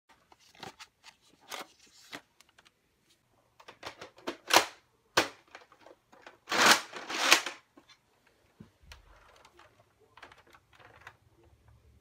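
Hard plastic clicks and scrapes as foam Nerf Mega darts are pushed into a plastic dart clip and the clip is handled on a Nerf Mega blaster. The loudest sounds are two short rasping scrapes about six and a half and seven seconds in.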